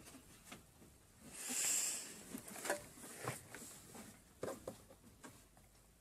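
Bedding rustling, with one loud swish of covers about a second and a half in, then scattered soft knocks and creaks as a person climbs onto the bed.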